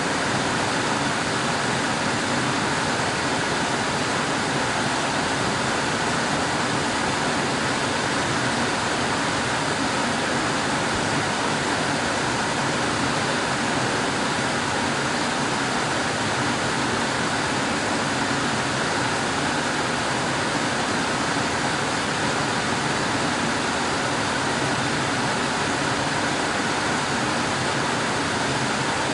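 Air conditioner running, a steady, even whooshing of blown air with no changes in level.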